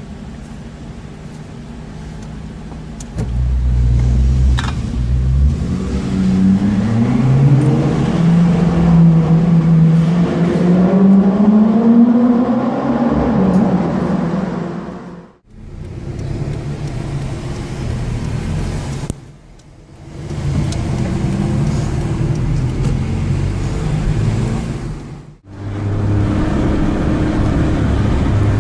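BMW M6 with an Akrapovic exhaust accelerating hard. The engine note climbs and falls repeatedly as it revs up through the gears. The sound breaks off abruptly a few times between loud runs.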